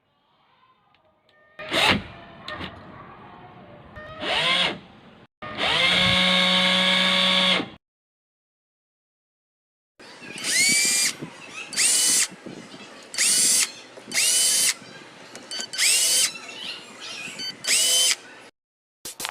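Cordless drill motor, a National EZ6501, run in bursts on its trigger. Each burst spins up with a quickly rising whine and then holds steady: one run of about two seconds in the first half, then six short bursts evenly spaced in the second half.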